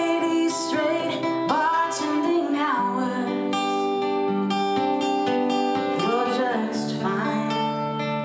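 A singer-songwriter's original song: a woman singing over a strummed acoustic guitar, her voice sliding between held notes.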